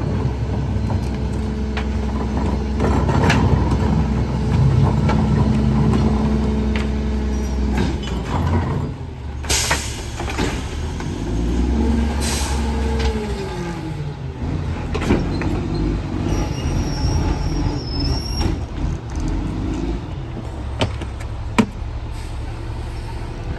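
Rear-loader garbage truck running with its hydraulics working as the packer cycles through the hopper, a steady mechanical whine that shifts and glides in pitch partway through. Two short bursts of air hiss about ten and twelve seconds in.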